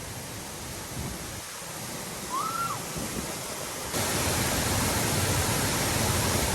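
Waterfall swollen by recent heavy rain, its falling water making a steady rushing noise that becomes abruptly louder about four seconds in. A brief faint call rises and falls near the middle.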